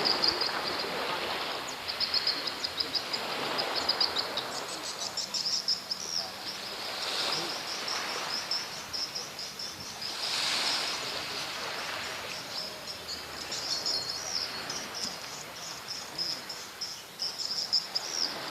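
Insects trilling steadily in a high, fast pulsing chorus, over a rushing outdoor background noise that swells a couple of times.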